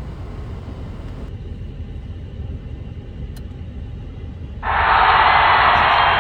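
Steady low rumble of a car driving on city streets, heard from inside the car. About four and a half seconds in, a much louder rushing noise cuts in abruptly and carries on.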